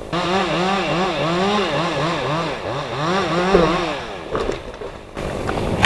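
Two-stroke chainsaw running under load in a back cut, its engine pitch rising and falling two or three times a second as the chain bites and recovers. It dies down about four seconds in.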